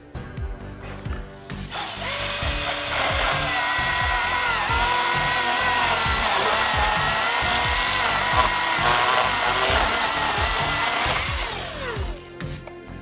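Battery-powered electric chainsaw spinning up about two seconds in and cutting for about ten seconds, its high whine dipping in pitch under load, then winding down. Background music with a steady beat is heard before it starts and after it stops.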